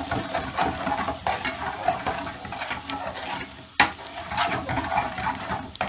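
Onions and ground curry spices frying in oil in a pan, sizzling as a utensil stirs and scrapes them, with one sharp knock against the pan a little past halfway: the spices are being roasted in the oil.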